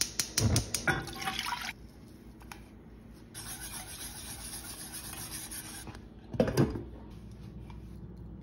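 Cooking sounds at a stainless saucepan: clinks and pouring in the first second and a half, then a steady hiss as dry grits are poured and whisked into the creamy liquid, and a short clatter of utensil on pan about six and a half seconds in.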